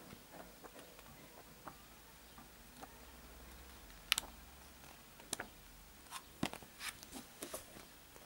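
Pages of a thick paperback comic omnibus being flipped by hand: faint scattered flicks and clicks of paper, with one sharper snap about four seconds in and a quicker run of clicks and taps in the last two seconds.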